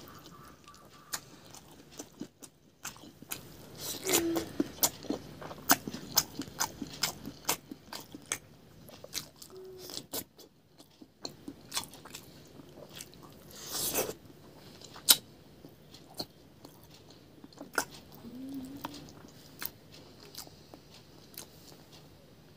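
Close-up eating sounds of a person chewing and biting fried fish eaten by hand: irregular crisp clicks and crunches from the mouth, with a louder cluster about two-thirds of the way through.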